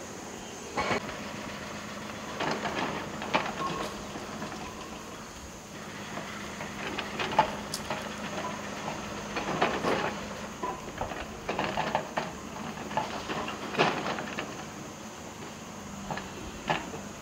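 Excavator demolishing a stone and concrete building: irregular crashes and clatter of breaking masonry and falling debris, over a steady engine hum.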